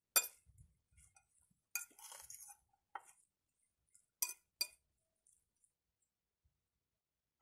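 A metal fork tossing shredded cabbage and chopped vegetables in a glass bowl, clinking against the glass: a handful of sharp clinks over the first five seconds, with a short scraping rustle of the vegetables about two seconds in.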